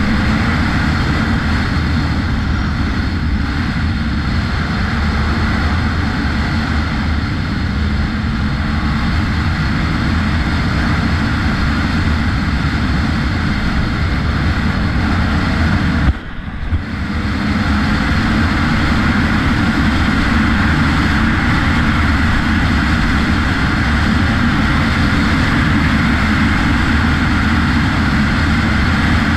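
Enduro dirt bike engine running steadily at speed on a gravel track, heard from the rider's own bike. Just past halfway there is one sharp knock and the engine sound briefly drops, then it picks up again.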